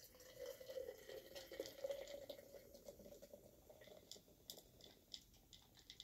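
Soda poured from a can into a glass mason jar over ice, faint. A steady gurgling pour for the first couple of seconds, then soft crackling of fizz and foam as the jar fills.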